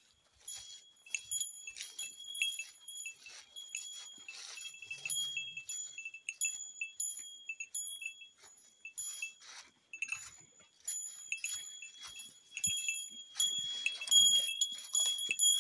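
A small bear bell carried by a walking hiker, jingling with each stride in a repeated ringing at an uneven walking pace, over the soft crunch of footsteps on the trail.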